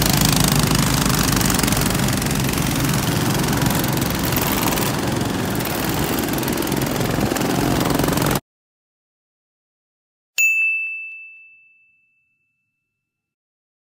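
Several petrol go-kart engines running loud as the karts pull away and circle close by. About eight seconds in the sound cuts off abruptly. Two seconds later a single bright ding sound effect rings out and fades over about a second and a half.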